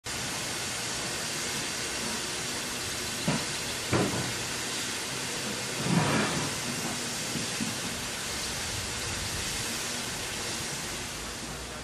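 Steam locomotive standing at rest, steam hissing steadily, with a few short knocks, the loudest about six seconds in.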